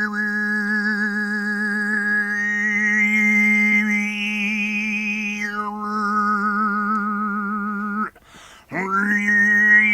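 Mongolian khöömii throat singing: one voice holds a steady low drone while a high, whistle-like overtone melody moves between notes above it. About eight seconds in, the voice breaks off for a breath and the drone starts again.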